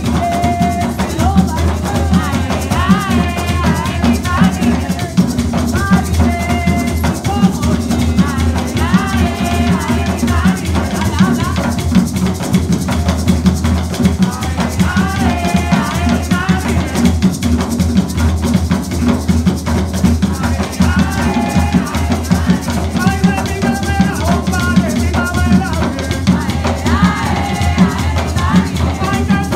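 Puerto Rican bomba played live on barriles (barrel drums): the buleador keeps a steady rhythm while the subidor lead drum plays strokes that follow the dancer's moves. A singer's voice carries over the drums.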